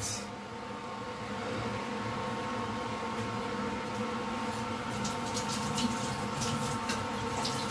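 Induction cooktop running at 1200 W on high, its cooling fan giving a steady hum with a few faint steady tones. From about five seconds in, a scatter of small crackles and pops comes from the butter and pineapple frying inside the closed pressure cooker.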